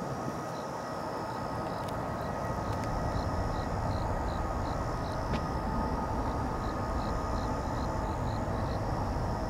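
Distant jet engine noise from a Boeing 777-300ER's GE90 engines after landing: a steady rumble with a faint whine. A high chirping repeats in short runs over it.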